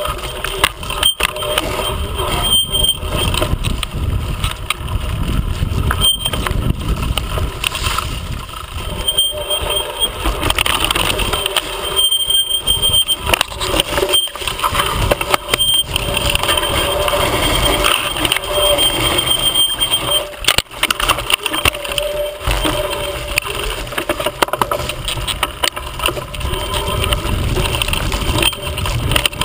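Mountain bike rattling and knocking as it rides fast down a bumpy forest trail, tyres crunching over dry leaves, with heavy wind rumble on the camera microphone. A thin high whine comes and goes.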